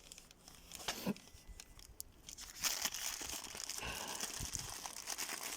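Plastic packaging crinkling and tearing as it is opened. There are a few light clicks at first, then steady dense crinkling from about two and a half seconds in.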